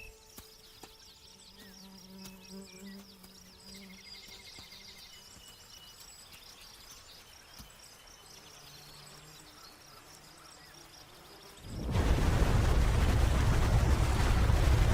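Quiet wild ambience of faint insect buzz and small bird chirps, then near the end a loud, steady rush of a fast-flowing stream running high starts suddenly.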